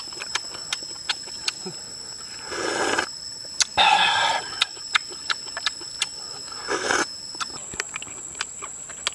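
A man's short vocal exclamations while eating, three of them, the loudest about four seconds in. Behind them run a steady high-pitched hum and many quick sharp clicks.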